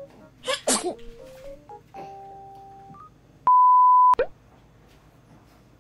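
Video-editing sound effects: a short noisy burst near the start, a few held electronic tones, then a loud steady high-pitched beep of under a second that starts and stops sharply.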